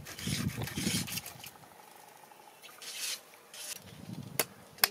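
Rough scraping and rubbing strokes, then two sharp knocks near the end.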